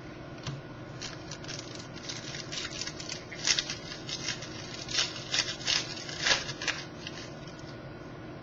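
Baseball cards being handled: a run of short, crisp rustles and clicks of card stock and wrapper, over a faint steady hum.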